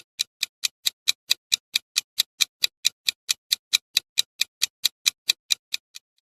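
Countdown timer sound effect ticking evenly, about four to five sharp ticks a second, stopping near the end.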